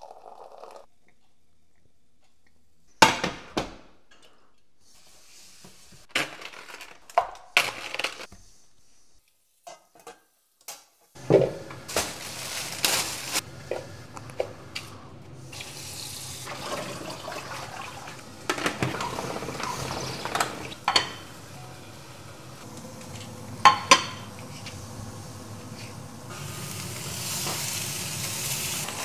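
Kitchen cooking sounds: a few scattered knocks and clicks, then from about a third of the way in, running tap water in a steel sink with utensils and dishes clattering, and chicken sizzling in a frying pan near the end.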